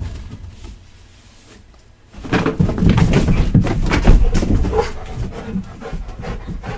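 A dog panting and running about close by, with quick scuffing footfalls starting about two seconds in.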